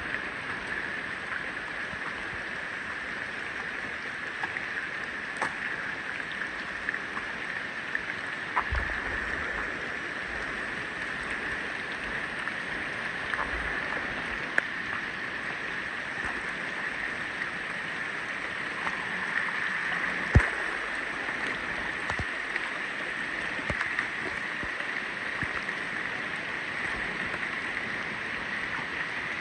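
Steady rush of running river water over rocks, with a few scattered clicks and low knocks, the sharpest click about twenty seconds in.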